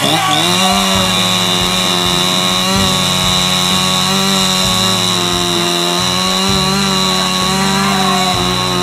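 Chainsaw held at high revs, cutting into a log with a steady, unchanging pitch. Irregular dull knocks from axe strikes on the same log sound underneath.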